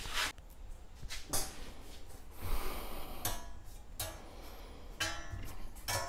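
Punched steel flat bar being worked in a vise and bench hardware: several sharp metal knocks and clinks, irregularly spaced a second or so apart, with a short scraping rustle in the middle.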